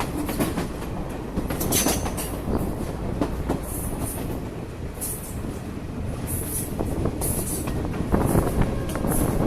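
Sri Lanka Railways Class S8 diesel multiple unit running along the line: a steady rumble of wheels on rail with scattered clicks, and short high squeals from the wheels every second or so.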